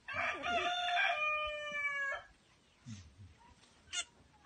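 A rooster crowing once: a few short opening notes, then a long held note of about two seconds that stops sharply. A brief high squeak comes near the end.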